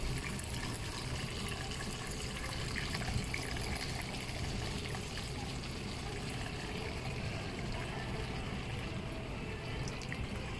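A thin stream of milky liquid pouring steadily into a wok of hot sauce, trickling and bubbling as it lands.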